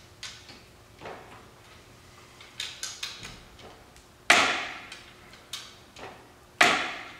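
Long-handled wrench working the cylinder head bolts of a Polaris Sportsman 500 engine: a few light metallic ticks, then two loud, sharp cracks about two seconds apart as the torqued head bolts are loosened a half turn.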